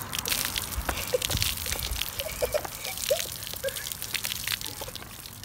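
Fizzing cola pouring from upturned plastic bottles and splashing onto a head and the pavement, with a crackling fizz and a patter of drips.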